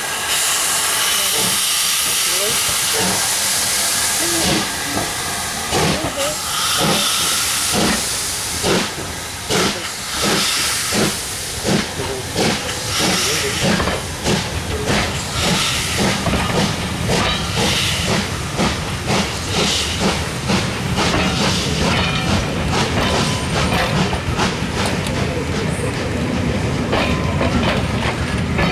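LMS Black Five No. 45379, a two-cylinder steam locomotive, getting a train under way: a loud hiss of steam for the first few seconds, then rhythmic exhaust beats that come gradually faster. In the second half the passenger coaches roll past with wheel clicks over a low rumble.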